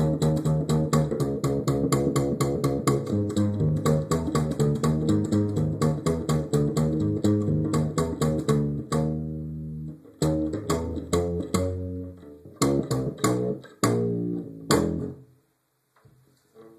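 Music with guitar and bass playing fast, evenly repeated notes, recorded through a phone's microphone. About nine seconds in it breaks into separate notes and chords, and it stops near the end.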